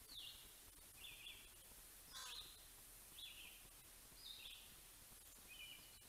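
Faint bird calls outdoors: one bird repeats a short, high, stepped, falling call about once a second, and a different call with a quick run of descending notes comes about two seconds in.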